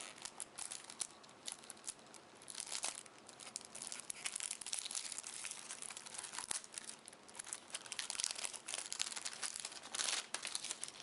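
Packaging of a Magic: The Gathering starter deck being torn open: continuous irregular crinkling and tearing, with louder rustling bursts now and then.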